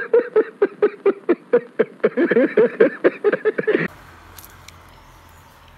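A man laughing heartily in a rapid run of ha-ha pulses, about four or five a second, from an old film clip with a thin, band-limited sound. It cuts off suddenly about four seconds in, leaving faint outdoor background noise.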